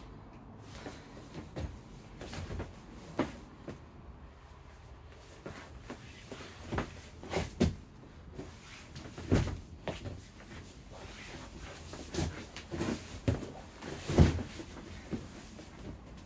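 Bodies and bare feet thudding and scuffing on vinyl-covered foam mats during grappling, as irregular thumps with the loudest near the end.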